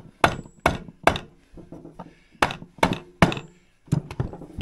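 Soft hammer tapping on the crankcase of a 1972 Polaris Colt 250cc single-cylinder engine: about eight gentle taps in small groups, a couple with a faint metallic ring. The taps are breaking the case-sealer seal so the glued case halves can be split.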